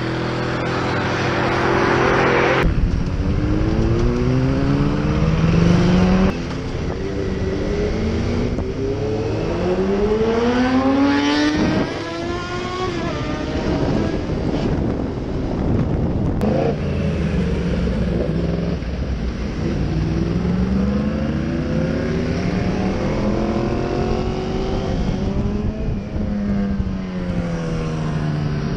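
Motorcycle engine heard from on board, accelerating through the gears: its pitch climbs repeatedly and drops back at each shift, over steady wind rush.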